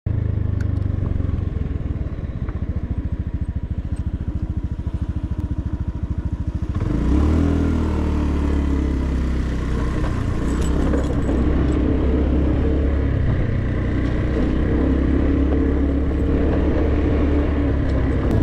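Small motorcycle engine heard from the rider's seat, running at low revs with an even, fast pulse. About seven seconds in it opens up with a rising pitch and keeps running at higher, varying revs.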